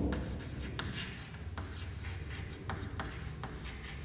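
Chalk writing on a chalkboard: short, irregular scratches and taps of the chalk against the board, a few strokes a second.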